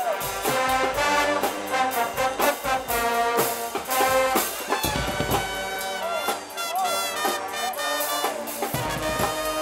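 Guggenmusik band playing: loud brass with trumpets and trombones over a pounding drum beat, in the deliberately raw, brassy style of Swiss carnival bands.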